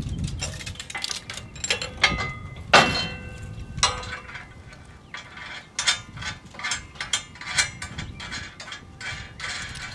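Steel wrench clicking and clinking on nuts and bolts of a steel tractor brush guard as jam nuts are run onto the guard's tension bolts. A couple of ringing metal clinks come about two and three seconds in, then a run of quick clicks, several a second.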